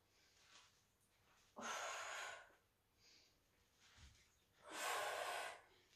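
A woman's breathing: two audible breaths, each about a second long and about three seconds apart, an inhale and then an exhale, paced with a Pilates abdominal roll-down and roll-up.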